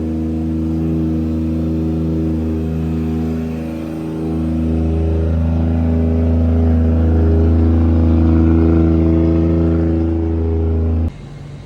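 Toyota Mark II JZX100's straight-six engine idling through a newly fitted Tomei titanium exhaust, a loud, steady drone. It rises in level a little after four seconds in and cuts off abruptly near the end.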